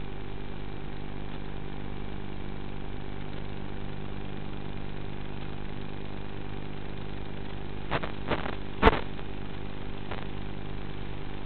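Electric motor and propeller of a TBS Caipirinha flying wing running at steady cruise power, picked up by the onboard camera's microphone as an even, steady drone. A few brief knocks come near the end, the sharpest about nine seconds in.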